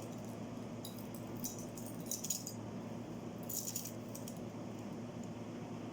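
Small metal jewelry pieces clinking and jingling as they are handled, in a few short bursts over a steady low hum.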